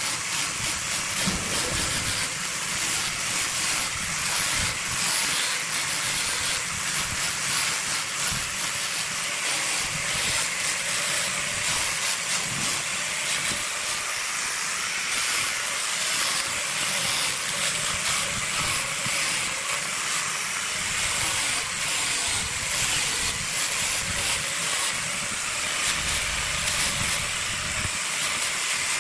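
Angle grinder with a sanding disc sanding a knotty wood blank as it spins on a wood lathe: a steady hissing rush of abrasive on wood over the motors' run.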